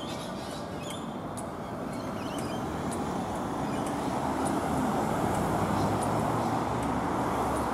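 City road traffic noise, swelling as a car passes close by in the second half.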